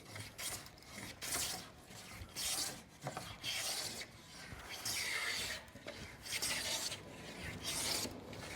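Hand smoothing plane taking fine shavings off the leading edge of a wooden door, a series of rasping strokes about one a second.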